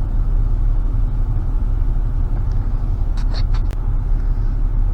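Car engine idling steadily, a constant low rumble, with a few light clicks about three seconds in.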